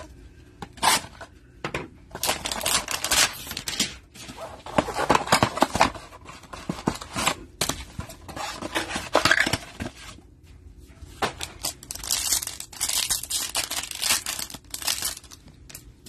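Cardboard trading-card hanger box being torn open by hand, with tearing and rustling of card and wrapper in several spells with short pauses between them.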